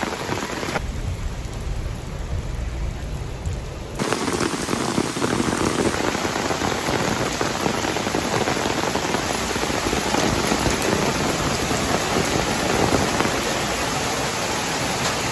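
Heavy cyclone rain falling steadily as a dense hiss, with a low rumble taking over for a few seconds near the start.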